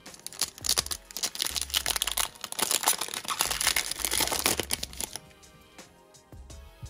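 Foil wrapper of a Panini Chronicles basketball card pack crinkling and tearing as it is opened by hand, for about five seconds, then stopping. Background music with a steady bass line plays under it.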